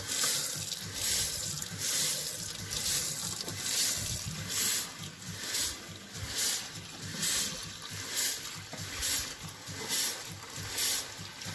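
Tap water running into silicone honeycomb ice cube trays in a stainless steel sink as they are filled, the splash swelling and fading about once a second as the stream moves across the cells.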